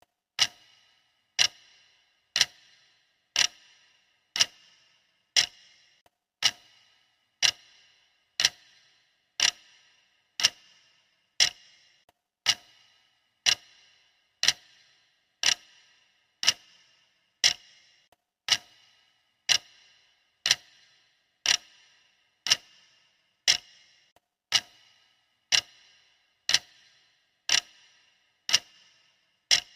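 Clock ticking steadily, one sharp tick a second, each with a short ringing tail.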